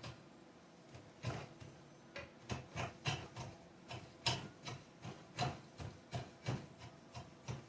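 Hand rasp or file worked in repeated scraping strokes over a wooden axe handle, about two to three strokes a second, starting about a second in.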